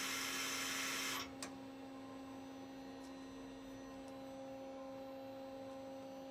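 Live-tooling spindle of a Doosan Lynx 220LMA CNC lathe whirring at speed, cutting off sharply about a second in, followed by a single click. A steady machine hum carries on afterwards.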